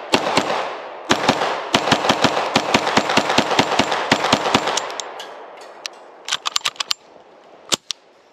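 IWI Uzi Pro 9mm pistol fired rapidly in semi-automatic, about twenty shots at four to five a second with echo between them, for some four and a half seconds. A few fainter sharp snaps follow near the end.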